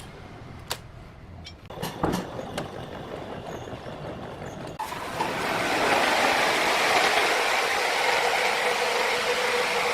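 Sawmill machinery: a few sharp knocks and clatters, then about halfway through a machine starts up and runs loudly and steadily with a constant hum.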